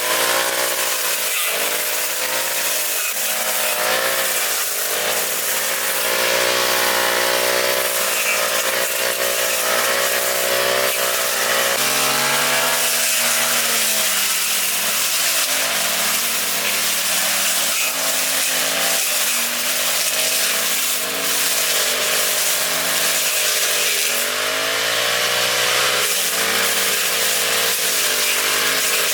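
Small petrol engine of a lawn mower running steadily while cutting grass, its pitch dipping and rising again every few seconds as the load on it changes.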